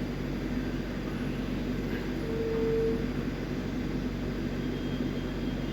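Steady low background rumble and hum, with a brief steady tone a little over two seconds in.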